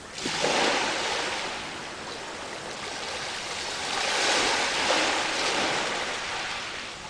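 Ocean surf: waves washing onto a beach, a steady rush of water that swells twice, about half a second in and again around four to five seconds in.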